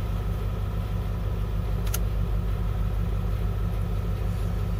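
School bus diesel engine running steadily with an even low rumble. A single sharp click sounds about two seconds in.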